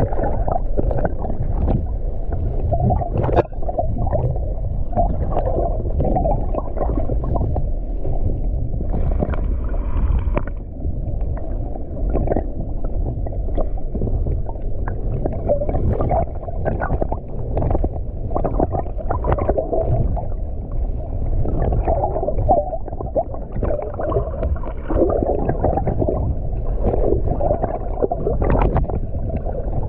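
Water heard underwater through a GoPro Hero9's microphone in shallow surf: a muffled, continuous churning and gurgling, with many scattered sharp clicks and ticks.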